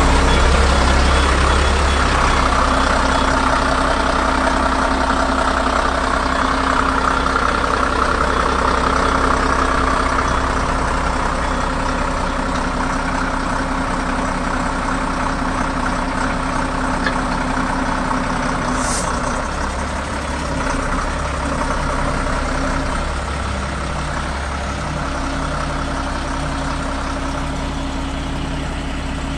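Diesel engine of a crane truck idling steadily.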